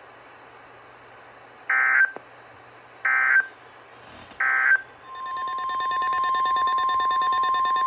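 Three short bursts of EAS/SAME digital data tones about 1.4 s apart, the end-of-message code of an Emergency Alert System broadcast. About five seconds in they give way to a long steady tone near 1 kHz, the weather radio's 1050 Hz alert tone that precedes a new warning.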